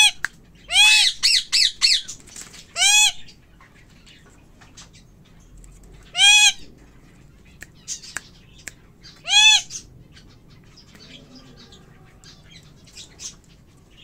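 A riled-up pet parrot squawking in loud, harsh calls: one at the start, a quick run of four or five about a second in, then single squawks about three, six and nine and a half seconds in.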